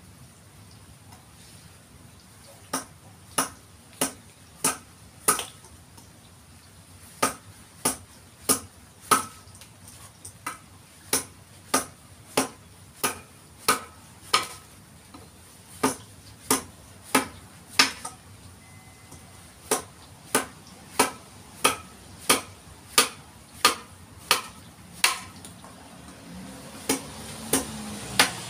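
Mallet driving a chisel into a Eucalyptus forest red gum didgeridoo: sharp, regular strikes about one and a half a second, in runs of several blows with short pauses between them.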